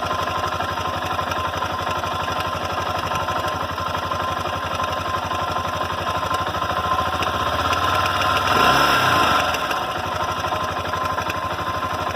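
Honda NX Falcon 400i single-cylinder engine idling with a hammering noise, which the owner links to the cam chain tensioner. About eight seconds in the revs rise briefly and fall back.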